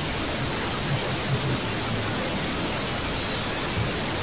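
Steady, even hiss, with a few faint low bumps about a second in and near the end.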